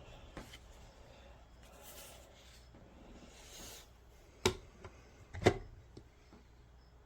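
Two sharp knocks about a second apart, the second the louder, over faint room noise with a couple of soft hissing swells before them.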